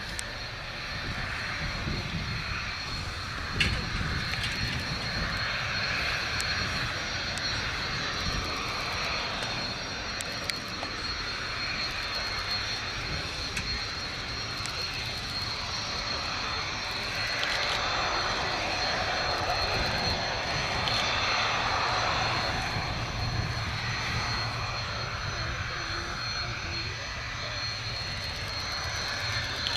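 BAe Hawk jet trainers' Rolls-Royce Turbomeca Adour turbofans running at low power as the jets move slowly on the runway: a steady jet rush with a high whine, a little louder in the middle.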